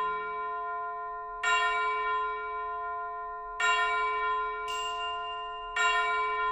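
Background music: a bell-like chime struck three times, about every two seconds, each note ringing on and slowly fading.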